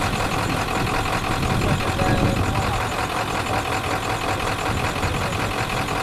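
A vehicle engine idling steadily.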